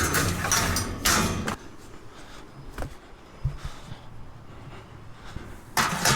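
Scrap metal pieces clattering and knocking as they are handled and loaded, with a sharp knock and a thud midway and another loud clatter near the end.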